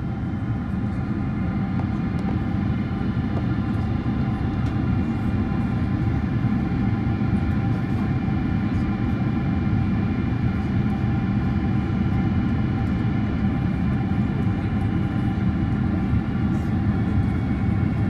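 Boeing 767-300 cabin noise on approach: a steady, loud rush of air and engine noise, with a set of steady engine tones above it.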